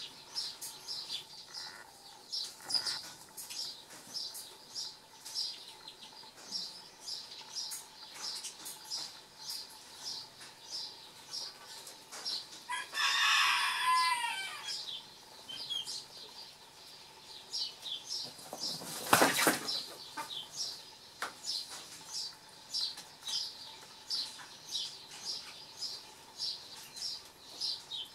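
A small bird chirps over and over, about two short high chirps a second. About 13 seconds in a chicken gives a loud call lasting about a second and a half, and about 19 seconds in comes a brief flurry of wing flapping, the loudest sound.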